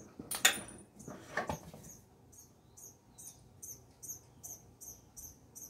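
Two short clanks from work on a riding lawn mower's rear wheel and axle, the first the louder, followed by a high chirp repeating steadily about two and a half times a second.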